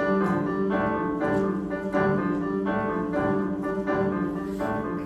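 Piano introduction to a choral song: repeated chords struck in a steady rhythm, about one every half second or so.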